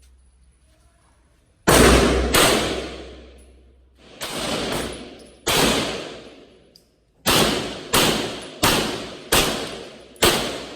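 Gunshots fired one at a time at a shooting range, about nine in all, each followed by a ringing echo that dies away. Two come close together, a few more follow with gaps, then a steady string of shots about two-thirds of a second apart.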